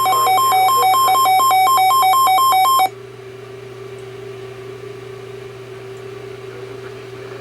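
Weather alert radio's built-in alarm: a loud electronic two-tone warble, high and low tones alternating rapidly, that cuts off suddenly about three seconds in. After it comes quieter radio hiss with a steady low hum.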